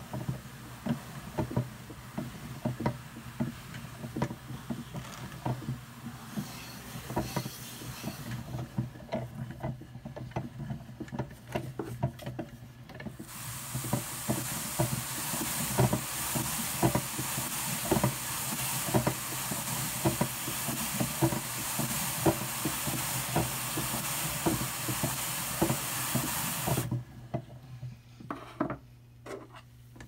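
Hand-cranked drum carder turning with a rhythmic clicking clatter as wool is drawn onto its drums. From a little under halfway, a stiff-bristled brush is pressed onto the spinning large drum's carding cloth, adding a loud, even rasping hiss that stops a few seconds before the end.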